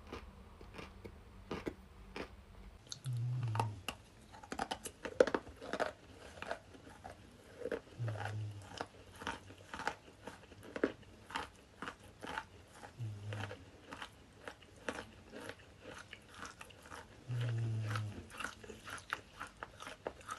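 A person biting and chewing chalk sticks close to the microphone: dense, sharp crunching and crackling, with a short dull thump every few seconds. The crunching starts about three seconds in.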